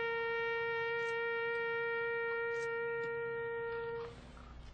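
A brass horn holds one long, steady note that ends about four seconds in.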